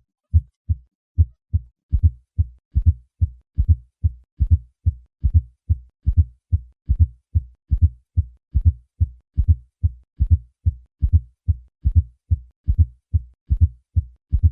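Heart sounds as heard through a stethoscope: a steady train of short, low-pitched thumps, the first and second heart sounds with an added fourth heart sound just before each first sound. Together they make a triple rhythm, an atrial gallop. It is the sign of a stiff, non-compliant left ventricle, often hypertrophied as in hypertension.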